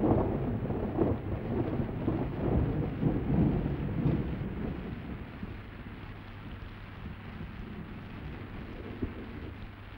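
Rolling thunder of a storm, loud at first and dying away over about five seconds, then a fainter steady hiss of rain.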